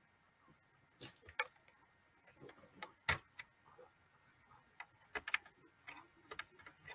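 Faint, irregular clicks and ticks over near silence. The guest's speech is missing because her audio has dropped out of the video call.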